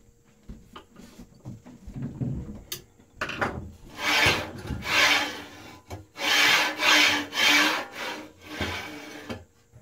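Flanged linear bearings of a 3D printer's print bed sliding up and down 12 mm hardened-steel Z-axis rods: a rasping rub in about six back-and-forth strokes over the second half, as the bed's travel is tested for binding.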